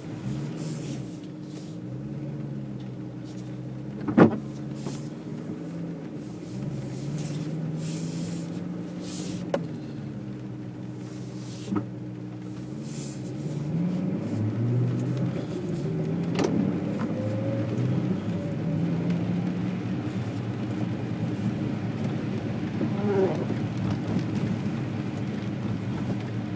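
Car engine and tyre noise on a wet road, heard from inside the cabin, the engine note rising and falling and getting louder about halfway through as the car gets moving. A few sharp clicks, the loudest about four seconds in.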